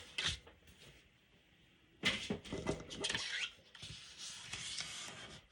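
Cardstock being handled and scored: after a short pause, paper rustles and a stylus scrapes along the scoring lines, with one short rising scrape partway through.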